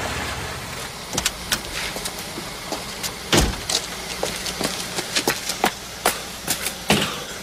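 Car engine dying away as the car stops, then a car door shutting with a heavy thud about three and a half seconds in, and quick footsteps on pavement, about two or three a second, as someone hurries off.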